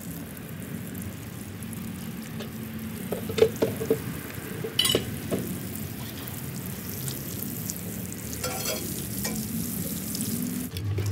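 Plants being watered: a steady spray of water hissing onto soil and leaves, with a few short clicks and knocks along the way.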